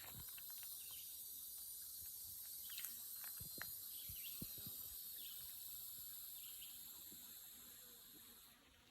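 A steady, high-pitched drone of a chorus of insects, fading away near the end, with a few faint scattered taps.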